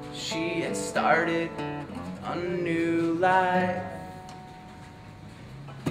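Steel-string acoustic guitar strummed, with a man singing over it in the first half; the chords then ring on more quietly before the next strum near the end.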